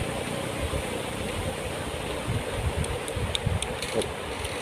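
Steady rushing of flowing river water, with low irregular rumbles and a few faint light clicks about three seconds in.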